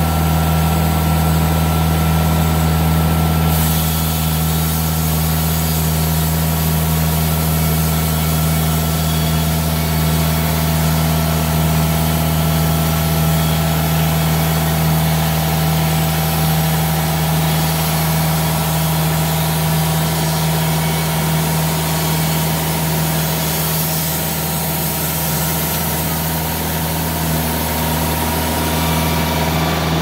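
TimberKing 2000 band sawmill running steadily as its water-lubricated band blade cuts through a red elm log. A higher hiss joins the engine about three and a half seconds in.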